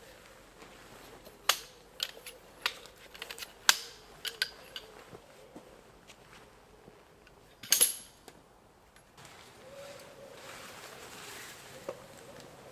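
Sharp clicks and clinks of camping kit being handled as tarp shelters are taken down, with a louder clatter about eight seconds in. Near the end, a soft rustle of a tarp being pulled down.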